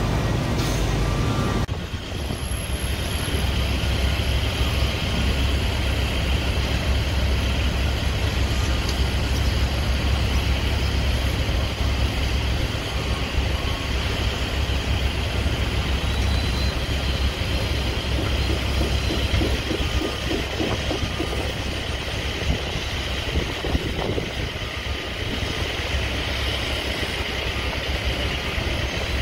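Construction-site noise: heavy diesel machinery running steadily, making a deep continuous rumble with a constant hiss over it. The sound changes abruptly about two seconds in.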